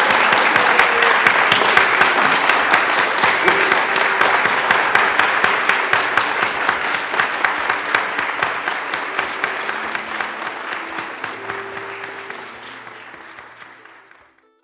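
A crowd applauding, with a dense, steady clatter of many hands clapping, greeting the announcement of the newlyweds. The applause fades out over the last few seconds as a few faint music notes come in.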